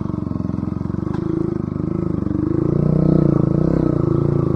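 Bajaj Pulsar NS200's single-cylinder engine running through an aftermarket Akrapovic exhaust while riding, picking up revs for a moment past the middle and then easing back.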